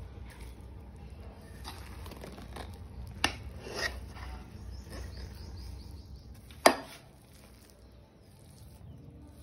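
A metal ladle scraping through cooked biryani rice and knocking against the cooking pot as it is turned over, with two sharp clanks, the louder about two-thirds of the way through. A low rumble underneath drops away about seven seconds in.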